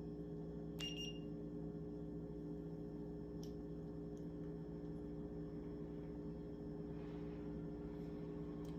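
Steady low electrical hum, with one short high beep from the infrared thermometer about a second in and a few faint clicks.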